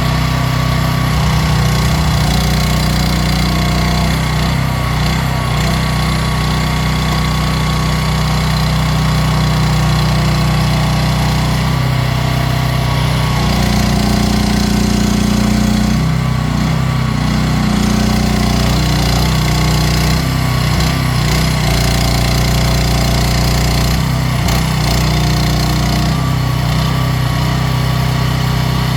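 Small engine of an AGT WH12R mini excavator running steadily, its pitch shifting slightly a few times.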